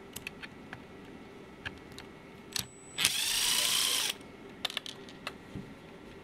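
A power screwdriver runs for about a second, backing a screw out of a cordless screwdriver's plastic housing, its pitch rising a little. Light clicks of the bit on the screws and housing come before and after.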